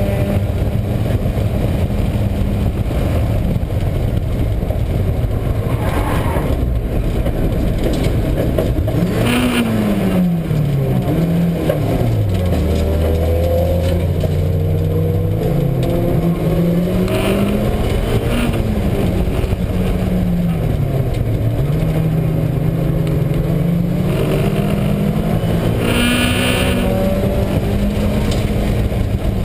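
Mazda Miata's four-cylinder engine running hard on track, its pitch climbing and falling several times with throttle and gear changes, over a steady low drone that the owner takes for a failing wheel bearing, most noticeable off-throttle. There are brief higher squeals twice.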